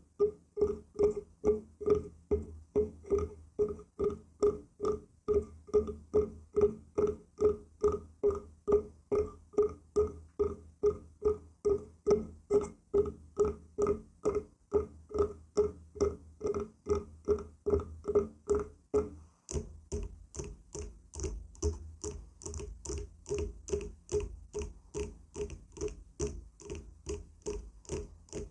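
Steady, rhythmic tapping on wood, about two to three taps a second, each tap with a short hollow ring. About two-thirds of the way through the tapping changes to a brighter, clickier tap with less ring.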